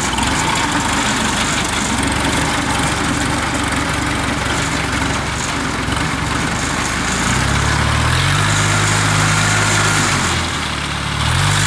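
Diesel engines of a rice combine harvester and tractor running steadily. About seven seconds in a deeper, steady engine hum joins, drops away briefly near the end and comes back.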